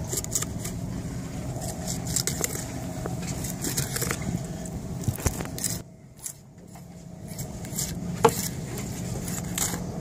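Filleting knife scraping and clicking along a yellowtail's backbone as the fillet is cut away from the spine, over a steady low hum. The sound drops out briefly about six seconds in.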